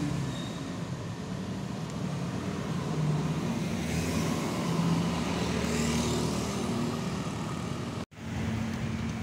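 Street traffic: motorbike and car engines running and passing, with a steady low drone that swells and fades. The sound cuts out for an instant near the end.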